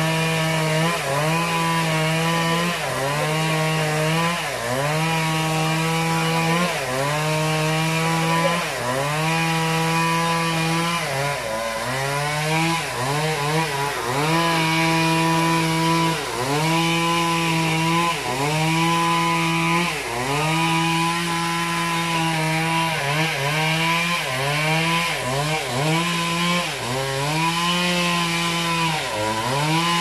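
Two-stroke chainsaw running at high revs and cutting wood. Its pitch dips and recovers every one to two seconds as the chain bites and the throttle is eased.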